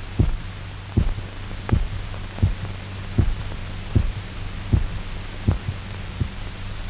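Heartbeat: a regular dull thump about every three-quarters of a second over a steady low hum. It is the revived dog's heart beating on its own, off the artificial circulation machine.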